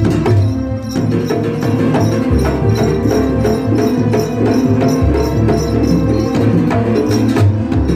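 Banyuwangi barong gamelan music played live: fast, dense drumming and jingling metal percussion over held melodic notes, with a deep gong stroke about every two and a half seconds.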